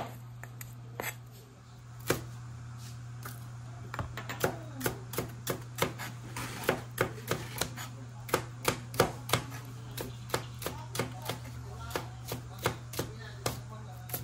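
Chef's knife chopping celery stalks on a plastic cutting board: a regular run of sharp knocks, about two a second, that settles in about two seconds in after a short pause. A steady low hum runs underneath.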